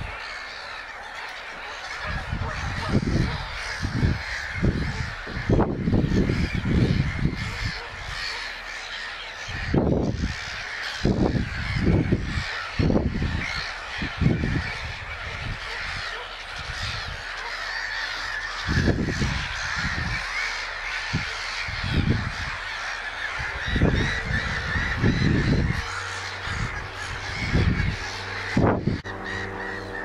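Wetland birds calling: short, loud, low sounds come in uneven runs over a steady background of higher chatter.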